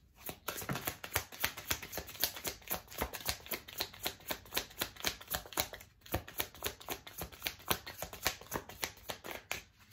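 A deck of tarot cards being shuffled by hand: a quick run of small card-on-card slaps, several a second, with a brief pause about six seconds in.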